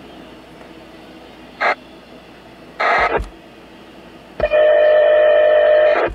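Radio scanner squawking over the steady rumble of a passing freight train of autorack cars: two short bursts of static, then a loud steady buzzing tone for about a second and a half that cuts off suddenly.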